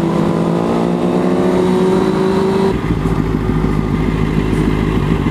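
A 2002 Suzuki GSX-R 600's inline-four engine pulling under throttle, its note rising steadily for about two seconds. About two and a half seconds in the note drops sharply to a lower, rougher running sound under heavy wind rush.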